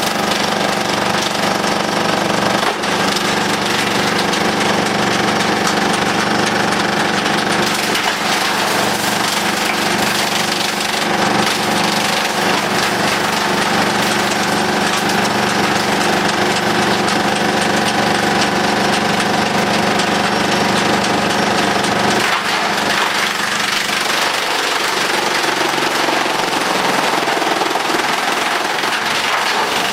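Tractor-PTO-driven Demuth drum wood chipper running and chipping wood: a loud, steady mechanical drone under a dense rapid rattle. About 22 seconds in, the low drone drops away and the sound shifts, staying loud.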